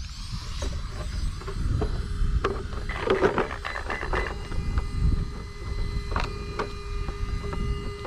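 Handling noise from an RC monster truck: clicks and clatter as it is turned over and held, loudest about three to four seconds in, over a low wind rumble on the microphone. A steady thin whine sets in about six seconds in.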